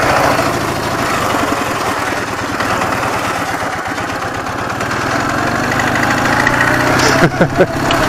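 Ural motorcycle's air-cooled flat-twin engine running under way as the bike is ridden off, a little louder near the end.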